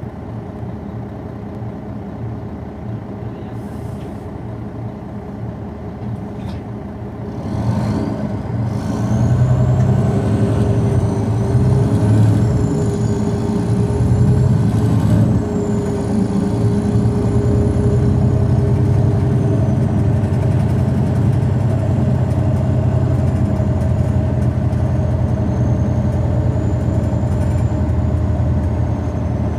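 Bus diesel engine (MAN D28 inline-six) heard from inside the rear of a Neoplan Centroliner city bus. It runs steadily at first, then about a quarter of the way in it pulls away and grows louder, with a high whine climbing alongside. Halfway through the level dips briefly, as with an upshift of the ZF Ecomat automatic gearbox, and it then runs on steadily.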